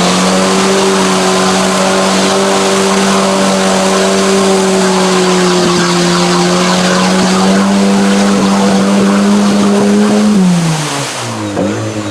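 Mud-bogging Suzuki Samurai's engine held at high revs, steady for about ten seconds, then falling off and revving unevenly near the end.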